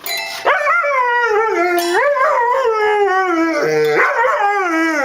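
A dog howling: one long, wavering howl that slowly falls in pitch and drops away at the end.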